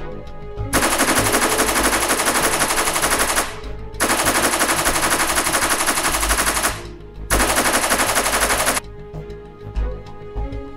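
Machine-gun fire sound effect in three long bursts of rapid shots, the third shorter, over background music.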